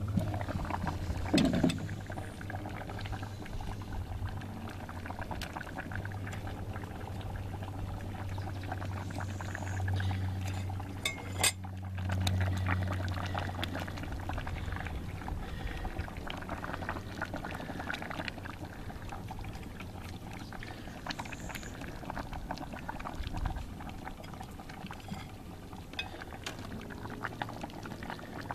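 Oxtail stew bubbling in an open cast-iron potjie over coals, full of small pops and ticks, as potatoes are laid into the liquid. A few sharp knocks stand out, the loudest about a second and a half in, as the lid is taken off.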